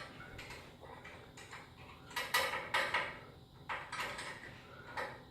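Steel winding bars clinking and clanking against a garage door torsion spring's winding cone as the spring is wound another quarter turn. The sound is a run of short metallic clinks with brief ringing, loudest around the middle.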